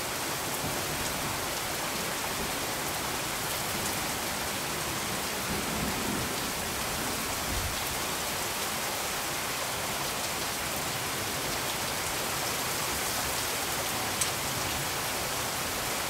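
Steady, even hiss of noise with no pitch, rain-like in character, with one brief faint tick about 14 seconds in.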